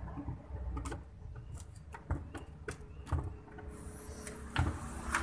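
Scattered plastic clicks and light knocks as a 24-pin ATX power-supply connector and its bundle of wires are handled and pressed into a motherboard's power socket.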